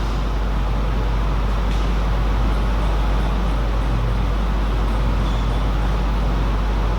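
Steady low hum with even background room noise in a table tennis hall, with no clear ball strokes.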